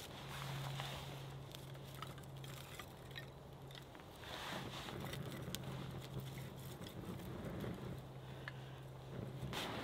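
Burning tinder bundle and thin split kindling crackling faintly with scattered small ticks as the fire catches, with a brief hiss about four seconds in. A faint steady low hum runs underneath.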